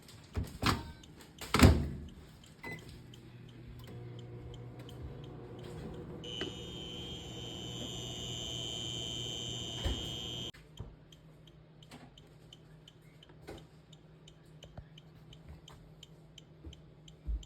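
Two knocks, then a microwave oven running with a steady low hum. About six seconds in, a high steady electronic tone joins it. Both cut off together about ten seconds in, leaving only faint ticking.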